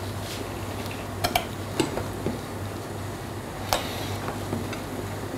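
A handful of short, light clinks of a kitchen utensil against a pot or dish, spaced irregularly over a steady low hum.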